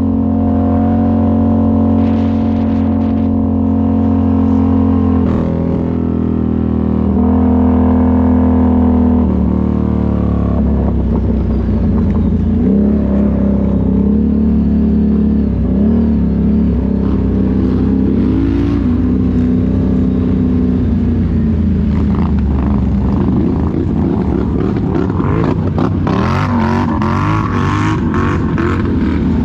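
ATV engine running at a steady speed, then revving up and down in uneven surges from about the middle on. Near the end, rough crackling and clattering noise builds over it.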